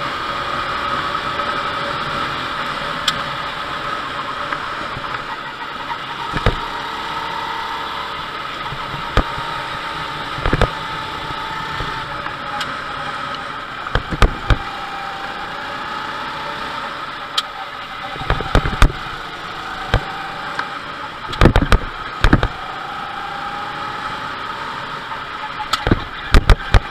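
Go-kart engine running at speed, heard from on board: a whine that rises and falls in pitch over a steady rush of noise. Sharp knocks break in several times, in clusters from about halfway through and again near the end.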